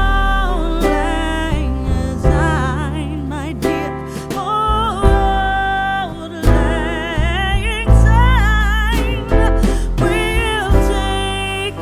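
Background music: a song with a solo singing voice, its long notes wavering with vibrato, over instrumental backing with a steady bass.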